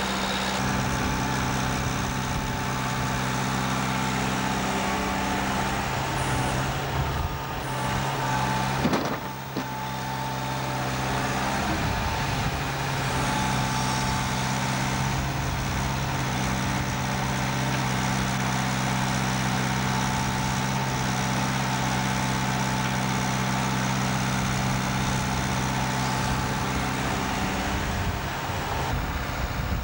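Heavy diesel engine running steadily at constant speed, with a short rising whine about nine seconds in.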